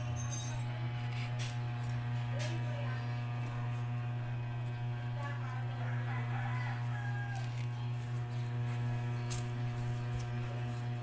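Steady electrical mains hum with a buzzy stack of overtones, over scattered clicks and knocks of fan parts being handled. A rooster crows faintly about halfway through.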